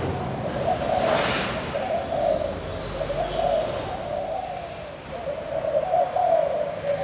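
Thai spotted dove cooing continuously, a low wavering run of coos without a break. A short burst of noise comes about a second in.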